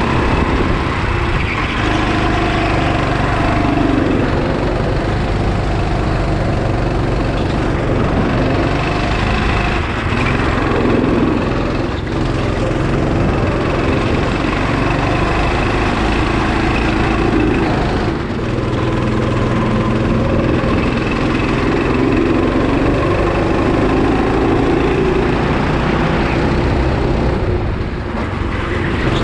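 Go-kart engine heard from the driver's seat, revving up and dropping back again and again as the kart accelerates and lifts for corners, with short dips where the throttle comes off.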